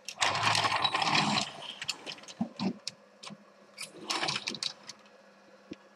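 Hard plastic toy figure being handled in truck mode: plastic parts clattering and clicking, in two bursts about a second long with scattered single clicks between.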